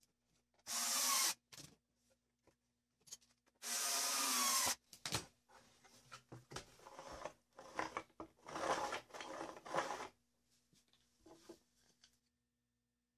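Wooden parts of a homemade saw table being handled: two loud scraping bursts of wood rubbing on the laminated board, then a run of rubbing and knocking as the board is lifted and turned over. A faint steady electrical hum sits underneath.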